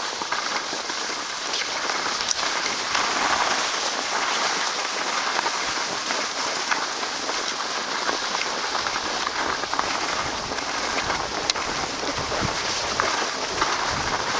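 Skis sliding over packed snow: a steady hiss with small scrapes and ticks.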